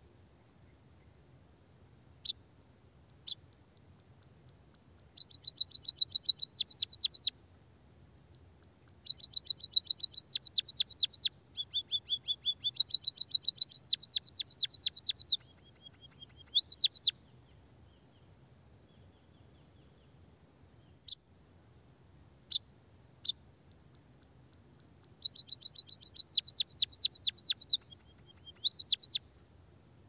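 White-headed munia singing: a few single sharp, high chirps and several rolling trills of rapid, falling high notes, each trill lasting about two to three seconds.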